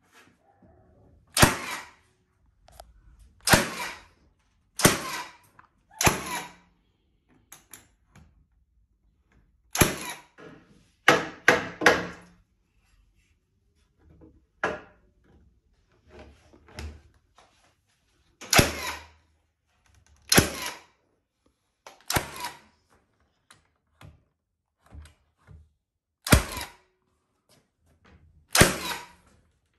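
Red cordless nail gun firing nails through timber studs into the plates, a sharp shot every second or two with a quick run of four shots near the middle.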